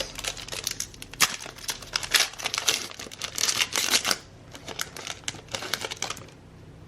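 Trading card pack wrapper being torn open and crinkled by hand: a dense run of crackles and clicks, with a longer ripping stretch a little past halfway, stopping shortly before the end.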